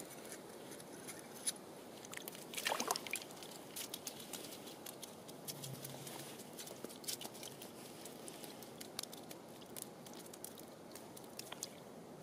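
Small clicks and taps from an ice-fishing rod, line and tackle being handled by hand over the fishing hole, with a louder cluster of handling noise about three seconds in.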